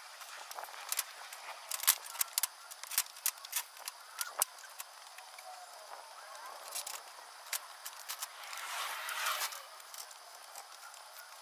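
Scattered light clicks and knocks as an aluminium-extrusion frame is handled and lifted onto a wooden base, with a longer scraping, rustling stretch near the end.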